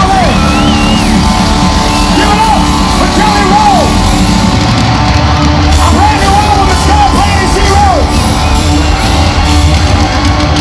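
Live rock band playing loudly: distorted guitars, bass and drums, with a pitched line that bends up and down over and over on top.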